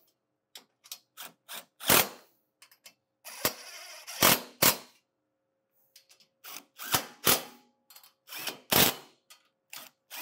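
Cordless impact driver run in quick trigger bursts, hammering bolts tight on a metal winch rack. There are a dozen or more short bursts at uneven spacing, with one longer run about three seconds in.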